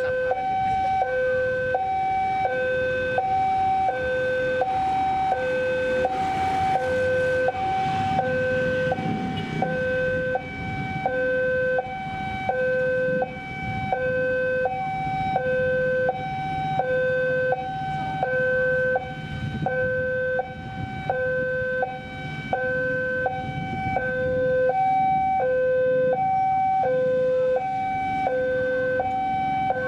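Two-tone electronic alarm alternating a lower and a higher tone about once a second without a break, typical of an Indonesian railway level-crossing warning alarm. A diesel locomotive's low engine rumble sits beneath it, plainer in the second half as the train creeps closer.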